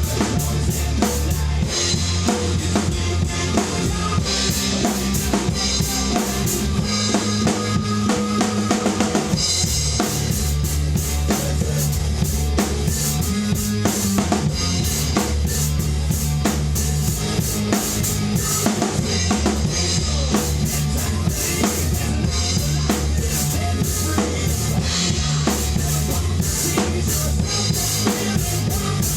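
Rock drum kit played in a driving beat, with steady kick-drum, snare and cymbal hits, over the song's backing track with its sustained low bass and guitar.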